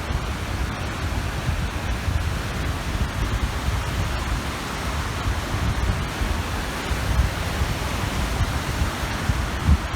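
Small waves washing onto a reservoir shore in a steady hiss of surf, with wind gusting on the microphone as an uneven low rumble.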